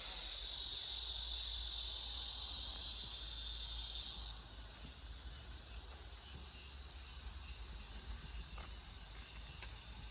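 A loud, steady high hiss that cuts off suddenly about four seconds in, leaving a fainter hiss over a low rumble.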